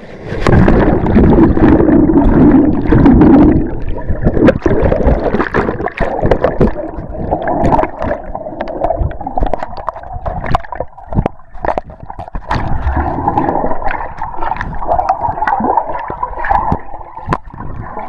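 Fast river water heard through a submerged camera: a muffled rushing and gurgling with many short knocks and bumps. It is loudest in the first few seconds.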